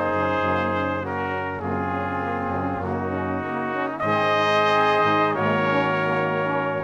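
Background instrumental music of long held chords that change every second or two, a little louder from about four seconds in.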